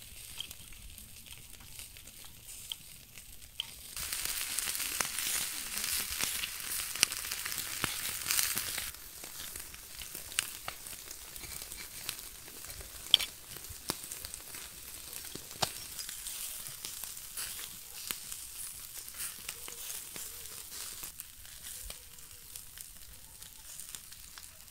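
Chicken kebabs on metal skewers sizzling over hot charcoal, with scattered sharp crackling pops. The sizzle swells much louder from about four seconds in for about five seconds, then settles back to a steady hiss.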